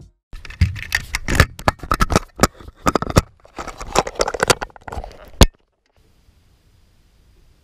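Fingers rubbing and scraping on an action camera's housing as it is handled, with many sharp clicks and knocks. The noise cuts off abruptly after a last loud click about two-thirds of the way through, leaving near silence.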